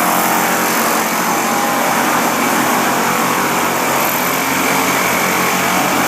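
Construction machinery with a small engine running steadily in a continuous loud drone.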